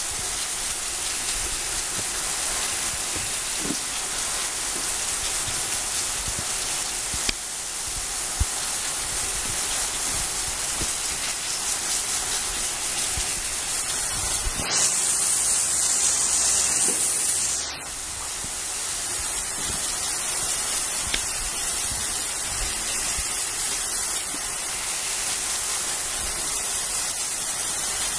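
High-pressure water jet from a hand-held spray wand hissing steadily as it blasts dirt off fresh ginger roots. A little past the middle the hiss turns sharper and louder for about three seconds, then settles back.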